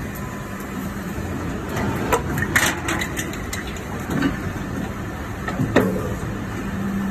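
Injection molding machine running with a steady hum through one mold cycle: a run of sharp clacks and clicks about two to three seconds in as the mold opens, and a thump near six seconds as it clamps shut again.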